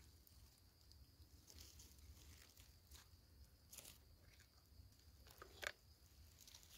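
Near silence, with a few faint crackles and rustles of dry leaf litter and twigs, the loudest about four-fifths of the way through.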